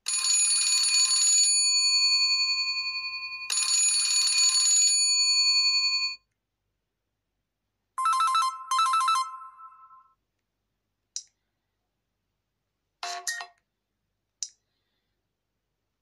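Alcatel OT-880 phone's built-in ringtones previewed one after another through its small loudspeaker. A chime-like electronic ring sounds twice, then a fast beeping pattern plays for about two seconds, and three brief blips follow.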